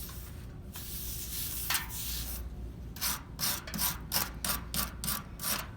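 Scrubbing strokes over a freshly soldered aluminum repair on a coil, cleaning and smoothing the joint. A few slow strokes come first; about three seconds in they become quick, even back-and-forth strokes, about four a second.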